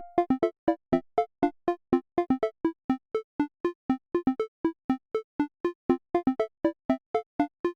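Background music: a bouncy tune of short, detached synth notes, about four or five a second, each cut off sharply.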